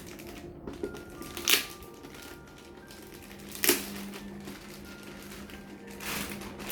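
Packaging being opened by hand: two short, sharp snaps about one and a half and three and a half seconds in, then a longer rustle near the end, over faint background music.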